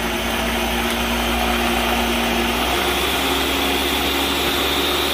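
Ninja countertop blender running at full speed, blending a chile salsa: a steady motor whir with liquid churning in the jar, its hum stepping slightly higher about halfway through.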